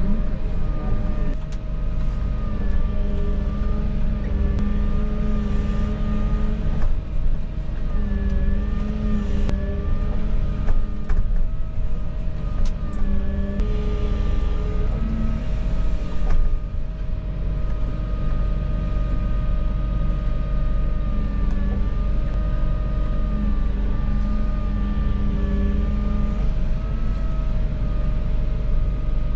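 Volvo EW160E wheeled excavator's diesel engine and hydraulics running under shifting load: a deep steady rumble with a hydraulic whine that steps up and down in pitch, and a few sharp knocks.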